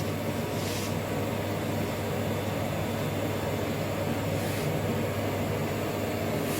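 Steady hum and hiss of room ventilation, with two short soft hisses just under a second in and about four and a half seconds in.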